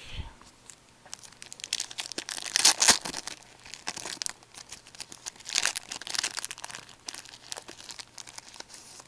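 Plastic-foil wrapper of a hockey card pack being torn open and crinkled in the hands, a dense crackle that is loudest about two and a half to three seconds in and again around six seconds in.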